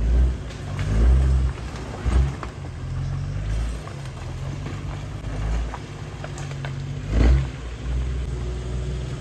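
Off-road Jeep's engine running under load on a rough trail, with several heavy low thumps and surges: near the start, about a second in, around two seconds and again about seven seconds in.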